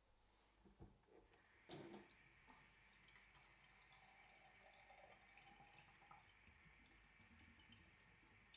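A couple of light knocks, then a sharp clack about two seconds in. After it, water runs steadily from a sink faucet, a faint, even splashing hiss.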